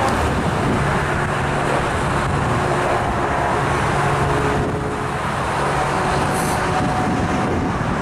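Steady highway traffic on the Pennsylvania Turnpike below the bridge: a continuous rush of tyres and engines from passing vehicles.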